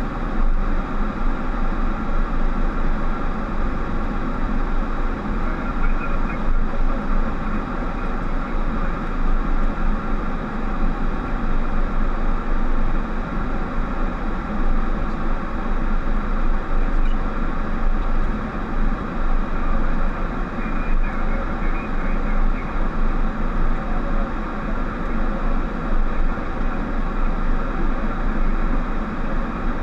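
Steady cabin noise in a Boeing 737 cockpit: a constant rush of air and engine hum with several held tones, unchanging throughout.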